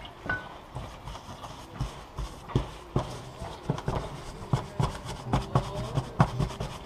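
Irregular knocks and taps, about two or three a second, with rubbing, as gloved hands work stain into cast skull pieces on a wooden board.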